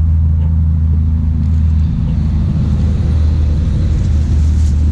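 A steady, loud low rumble with a faint hum, unchanging throughout.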